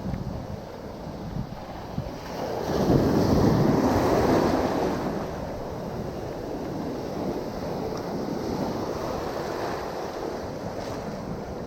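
Ocean surf washing around a wading angler, with wind on the microphone; a wave swells up about two and a half seconds in and fades over the next couple of seconds.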